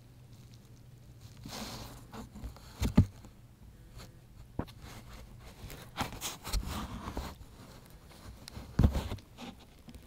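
Close-up rustling and scraping with several dull knocks, the loudest about 3 seconds in and again near 9 seconds, as a puppy moves about on fleecy bedding right against the camera.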